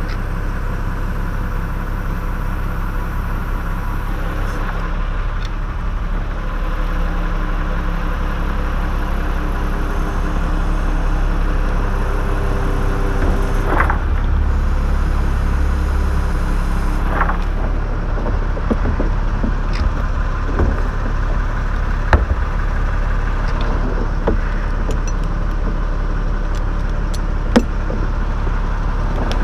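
An engine running steadily at idle, with a low hum whose tone shifts slightly partway through, and a few sharp clicks in the second half.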